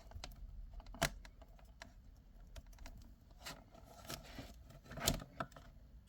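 Small plastic LED micro connectors and cable being handled and plugged together. There are a few sharp clicks, the clearest about a second in and near five seconds, with lighter ticks and a soft rustle of cable between them.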